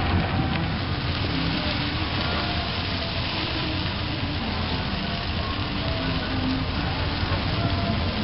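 Takoyaki batter sizzling in hot takoyaki griddles: a steady, even hiss.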